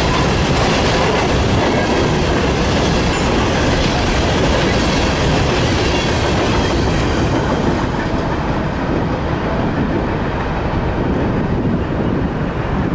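Empty grain train of freight cars rolling past, with the steady noise of steel wheels on the rails; the high hiss thins out in the last few seconds.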